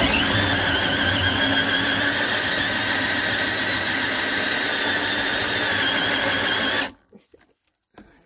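Black & Decker 20V cordless drill driving a 40 mm metal hole saw into a wooden board. It runs steadily with a high-pitched whine, then stops abruptly about seven seconds in.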